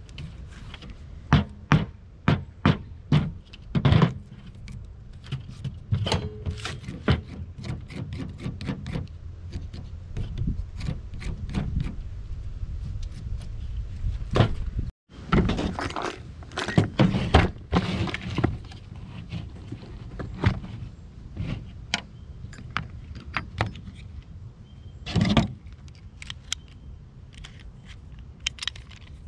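Hatchet blade knocking into a wooden branch in a quick series of sharp strikes over the first few seconds, then more scattered knocks and scraping as the wood is carved and the tools are handled.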